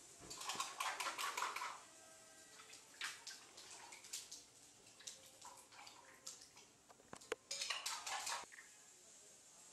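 Clattering and clinking of hard objects, in a long burst near the start, a few separate clicks, and another burst near the end.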